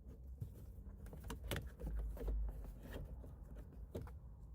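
Faint clicks and light rattles of a plastic door handle trim cover being pulled off a truck's interior door panel and worked around the handle, over a low steady hum.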